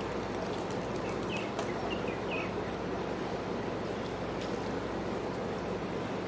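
Steady low running noise of a passing chemical tanker's machinery, with a few short bird chirps about one and a half to two and a half seconds in.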